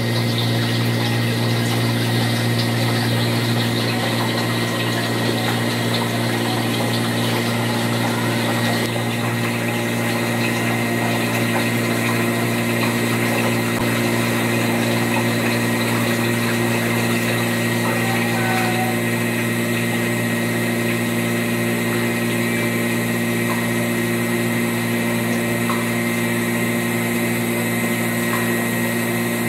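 Self-contained ice machine running in its harvest cycle: a steady, loud mechanical hum with a hiss over it. The highest part of the hiss drops away about nine seconds in.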